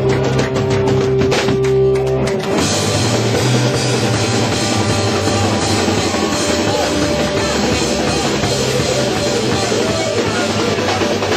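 Rock band playing live: electric bass, electric guitar and drum kit. Held notes over drum hits at first, then about two and a half seconds in the band thickens into a dense, full wash of sound.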